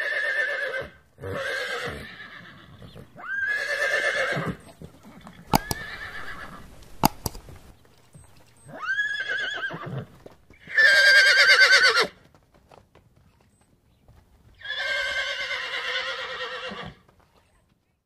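A horse neighing: about seven quavering whinnies, each one to two seconds long, with short gaps between them. The loudest comes about eleven seconds in. Two sharp knocks fall near the middle.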